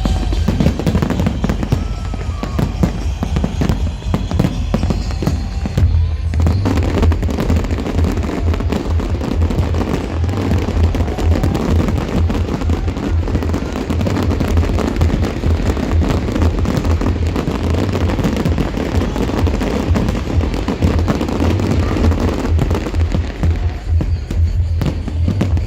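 Fireworks bursting and crackling in rapid succession over loud electronic dance music with a heavy pulsing bass, the beat growing stronger about six seconds in.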